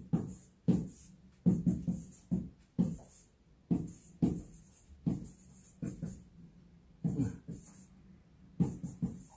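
Whiteboard marker writing character by character, with short, quiet, voice-like sounds about once or twice a second.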